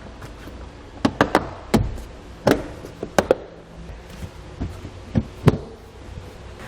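Plastic interior trim panel being pushed and pressed back into place, giving about ten sharp knocks and taps in irregular clusters, several close together about a second in.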